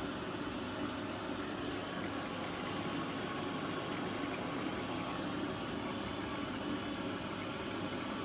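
Candy GrandO Vita Smart Fi+ front-loading washing machine running early in its delicate-tablecloths programme, a steady even noise with water sounds and no change in level.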